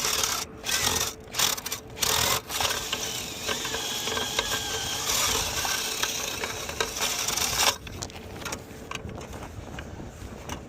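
A power drill running in a few short bursts, then steadily for about five seconds before it stops, driving a tool to clean lint out of a roof dryer-vent termination.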